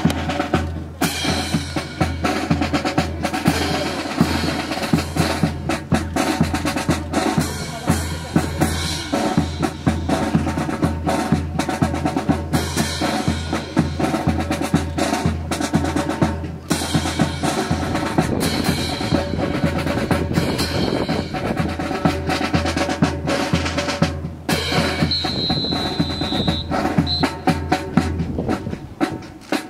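Snare and bass drum cadence, a steady run of quick beats and rolls.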